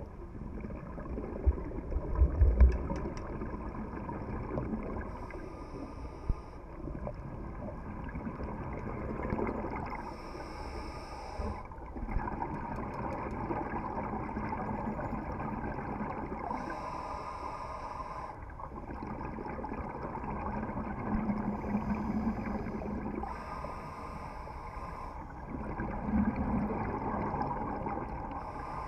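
Scuba regulator breathing heard through an underwater camera housing: a hissing inhale about every five to six seconds, with bubbling, gurgling exhalations between them. A few dull knocks come about two seconds in.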